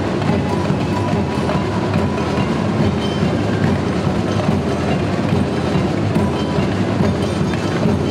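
Samba bateria playing: surdo bass drums, snare drums and metal jingle shakers beating out a dense, steady rhythm.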